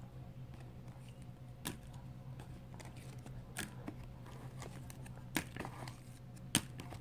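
Faint, scattered clicks and taps of rigid plastic card toploaders knocking together as they are flipped through by hand, over a steady low hum.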